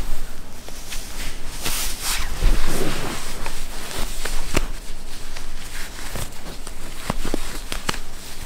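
Scattered light clicks and knocks at irregular intervals over a steady hiss.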